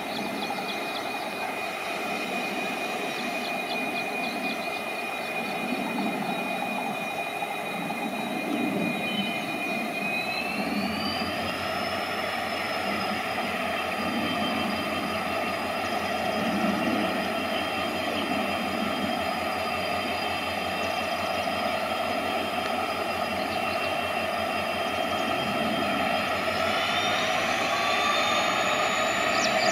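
EMD WDP4 diesel locomotive's turbocharged engine running with a high turbo whine, which glides up in pitch twice, about ten seconds in and again near the end, as the engine revs up to move the train off.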